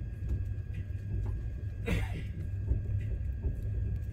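Passenger train running slowly, heard from inside the coach as a steady low rumble, with one short knock about two seconds in.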